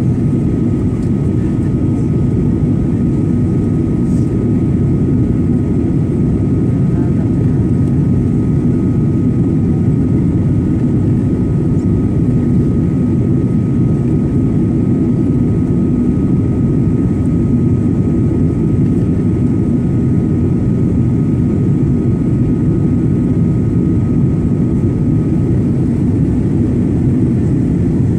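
Steady low roar of a Boeing 737's engines and rushing air, heard inside the cabin on the landing approach. A faint steady high whine runs through it and fades out near the end.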